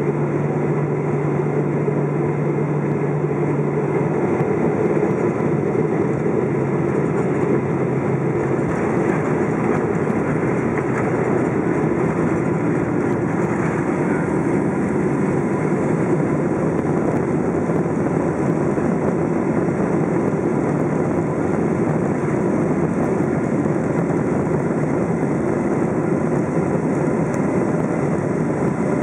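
Boeing 777-200's General Electric GE90 turbofan heard from inside the cabin during the landing rollout, with thrust reversers deployed: a loud, steady rushing roar that doesn't let up. A low steady hum drops out about four seconds in.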